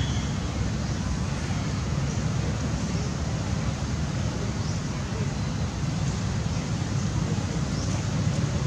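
Steady low rumbling background noise with no clear events, and a few faint, short high chirps.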